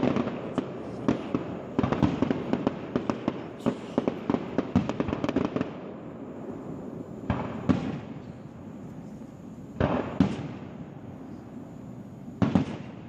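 Fireworks display: a dense run of rapid crackling pops for about the first six seconds, then three separate loud bangs a couple of seconds apart, each echoing out.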